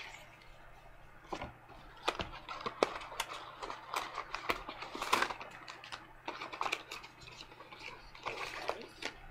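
Sheet face-mask packets crinkling and clicking as they are handled and shuffled: a scatter of irregular sharp crackles, busiest in the middle.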